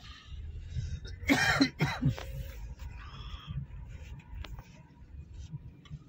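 A person coughs twice in quick succession, about a second and a half in, over the low rumble of a moving car's cabin.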